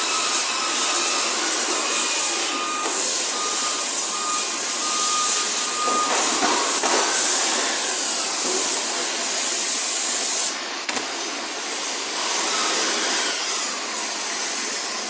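Steady hissing machinery noise of a large industrial hall, with a thin whistle-like tone through roughly the first six seconds.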